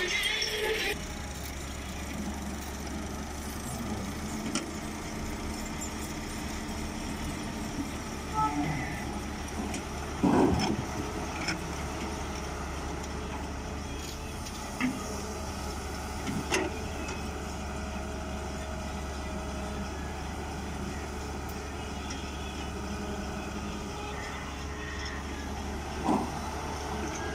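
Volvo wheeled excavator's diesel engine running steadily as it digs and loads soil. Scattered knocks and clatters from the bucket and falling earth, the loudest about ten seconds in and another near the end.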